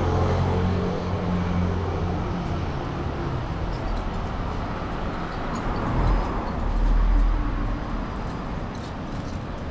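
Town street traffic: an engine running close by with a steady low hum for the first couple of seconds, then a car passing close, loudest about six to seven seconds in, over a constant background of road noise.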